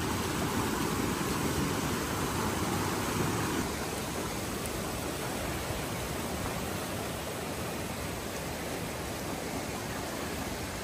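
Steady rush of water over the rocks of a river's rapids, an even hiss; it drops a little in level about four seconds in.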